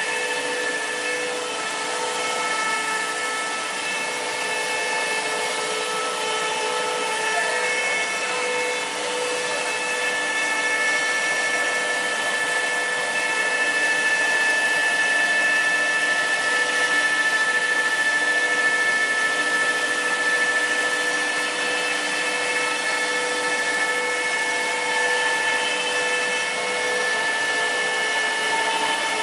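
Double-screw extruder pelletizing line running: a steady machine whine of several held tones over a constant hiss, a little louder in the middle.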